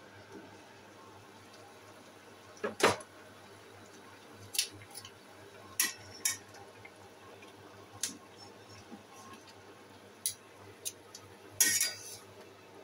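Clinks and knocks of a cooking utensil and glass pot lid against a stainless steel pot as boiled broccoli and carrots are stirred. There are about eight separate strikes, the loudest about three seconds in, and a short clatter near the end.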